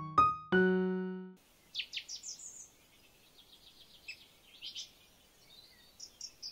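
A few sustained piano notes that cut off abruptly just over a second in. Then small birds chirping in short, quick high trills.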